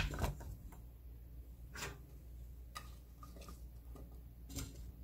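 Sliced raw radish and zucchini pieces being set into a stainless steel pot: a few scattered light clicks and taps of vegetable against metal, the sharpest one at the very start.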